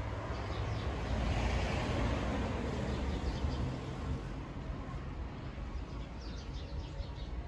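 Outdoor ambience: a passing vehicle swells up and fades away over a few seconds over a steady low rumble, with birds chirping briefly near the start and again near the end.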